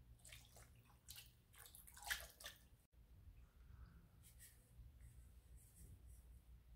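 Faint splashing and dripping as vinegar is poured from a small glass bowl onto raw pork ribs, loudest about two seconds in, followed by fainter patters as salt is sprinkled over the meat.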